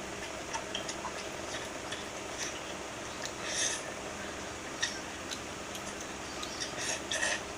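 Eating at a table: scattered small clicks and clinks of cutlery and dishes and a few short, crisp crunches, the clearest about three and a half seconds in and near the end, over a steady low hum.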